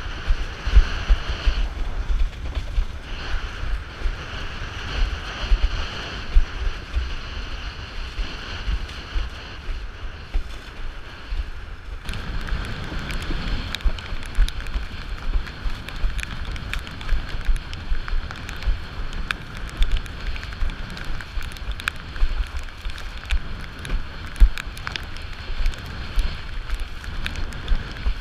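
Wind buffeting an action camera's microphone while a windsurf board sails through choppy water, the water rushing and slapping along the hull. From about twelve seconds in, spray spatters on the camera as many short sharp ticks.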